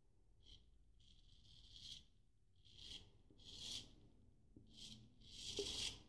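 Straight razor scraping through lathered stubble in short, quick strokes, about six faint rasps, the longest near the end.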